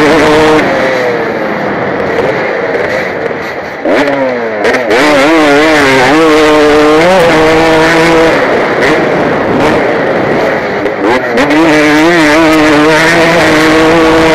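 KTM 250 motocross bike engine heard from the rider's helmet, revving up and down through the gears with the pitch repeatedly climbing and falling. It eases off for a stretch in the first few seconds, then comes back hard about four seconds in.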